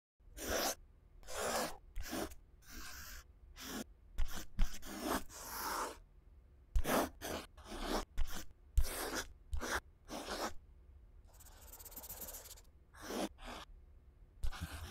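Pencil strokes scratching on paper: a quick, irregular run of short scratchy strokes, with one longer, softer stroke about two-thirds through.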